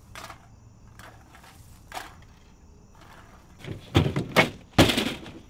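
RV trailer door: a quick cluster of loud knocks and rattles about four seconds in, after a few faint clicks.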